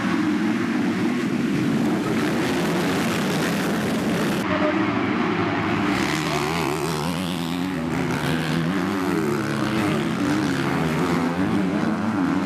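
A pack of motocross bikes racing, many engines revving together. The sound changes abruptly about four and a half seconds in, and after that single bikes are heard revving up and down as they go past.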